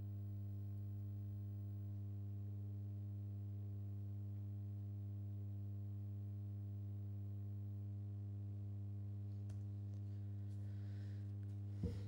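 Steady low electrical hum, a mains hum with a row of evenly spaced overtones, in the room's sound system. A single short knock near the end.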